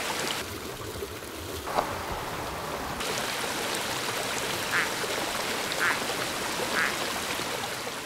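Steady rush of a mountain stream, with a Cusuco spike-thumbed frog (Plectrohyla dasypus) calling over it: one short call about two seconds in, then three more about a second apart in the second half.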